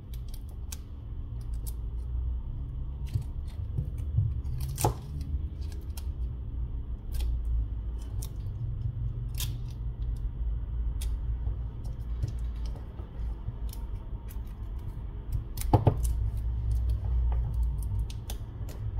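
Light handling noises of a phone battery and its adhesive film being worked by hand on a work mat: small plastic clicks and taps, with two louder crinkling scrapes about five seconds in and near the end, over a low steady hum.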